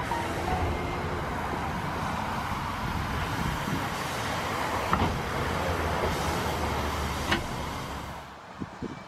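Small W.G. Bagnall 0-4-0 saddle-tank steam locomotive moving slowly past at close range: a steady rumble and hiss, with two sharp clanks, one about five seconds in and one about seven seconds in. The sound drops away shortly before the end.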